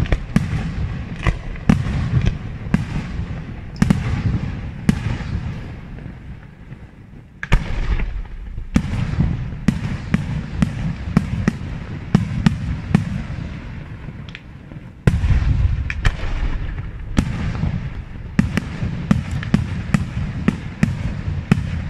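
Aerial firework shells bursting in a night display: a rapid series of sharp bangs and cracks over a continuous low rumble. The barrage grows louder suddenly about seven and a half seconds in and again about fifteen seconds in.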